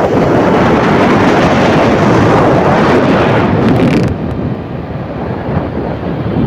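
Loud, steady rushing noise. For about two seconds from four seconds in, it turns duller and slightly quieter.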